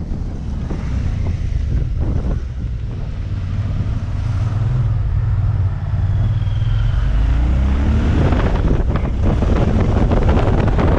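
Motorcycle engine running under wind noise on the microphone while riding uphill, with a short rise in the engine note about seven seconds in. The wind noise grows louder in the second half.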